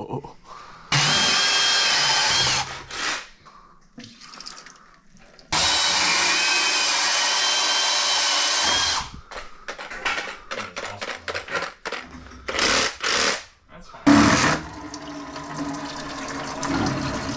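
Portable bandsaw running, cutting in two long even stretches about a second in and again from about five seconds in, then in a string of short bursts.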